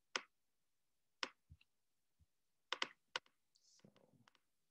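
A handful of sharp computer-key clicks, irregularly spaced with two close together, as slides of a presentation are clicked forward, followed by a faint brief rustle.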